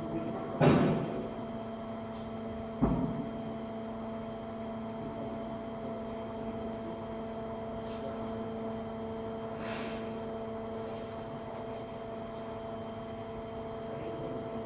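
Steady machine hum from the tilt table's drive during a vehicle tilt test, with two loud clunks, one about a second in and another near three seconds.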